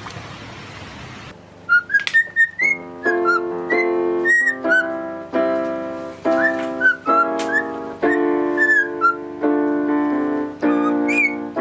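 A cockatiel whistling short chirping notes that bend up and down, over a tune of keyboard notes played about one every half second. A rushing noise cuts off about a second in.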